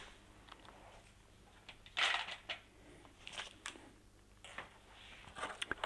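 Faint handling noise: a few light clicks and rustles of tools and small parts being handled, the loudest about two seconds in and several more near the end.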